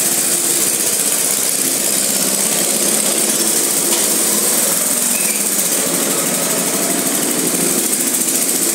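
Several go-kart engines running steadily as the karts pull away and drive around the track.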